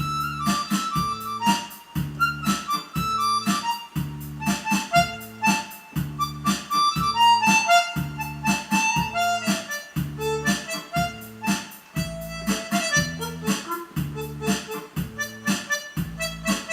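Electronic keyboard playing the melody of a Korean trot song in a reedy, harmonica-like voice over a steady auto-accompaniment of bass, chords and drum beat.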